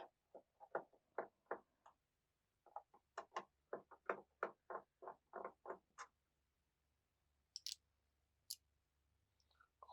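Faint, light clicks from a small screwdriver working the bottom-case screws of an Asus X540LA laptop, about three a second in two runs, then two sharper, higher clicks near the end.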